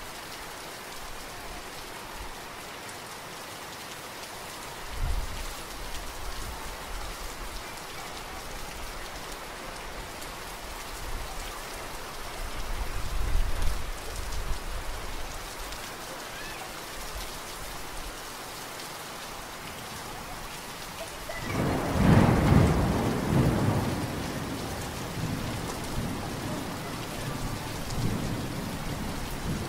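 Steady rain falling, with thunder. A short low rumble comes about five seconds in and a longer one around thirteen seconds. A loud roll of thunder begins about two-thirds of the way through and dies away over several seconds.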